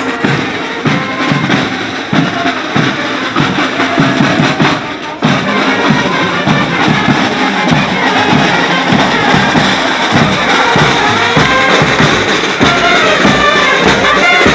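Banda street band playing as it marches: bass and snare drums beating a steady rhythm, with saxophones and trumpets carrying the tune more strongly in the later part.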